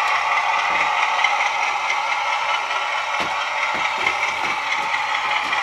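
Sound decoder in a Heljan OO-gauge Class 33 model locomotive playing the diesel engine at tick over (idle) through the model's small speaker. It sounds thin and steady, with no bass, and a few faint clicks come in from about three seconds in.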